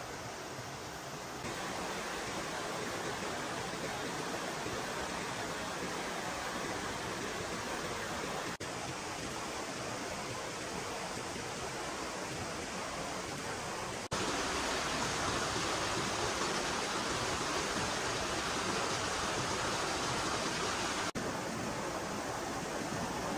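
Steady rushing noise with no distinct events. It shifts abruptly in loudness and tone about a second and a half in, near the middle, and again near the end.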